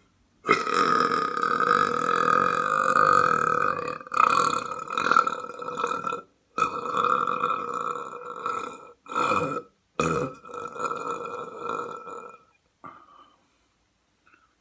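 A person belching: one long, drawn-out belch of about six seconds, then three or four shorter belches with brief silences between. The last dies away about thirteen seconds in.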